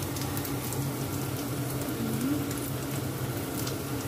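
Clam and egg omelette frying in oil in a wok over a low flame: a steady soft sizzle with faint crackles, over a steady low hum.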